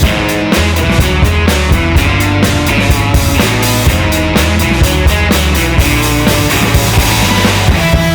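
Background rock music with a steady drum beat and a bass line.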